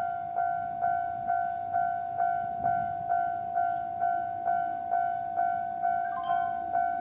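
Japanese railway level-crossing warning bell ringing: a single-pitched electronic ding repeating steadily about twice a second, each strike fading before the next.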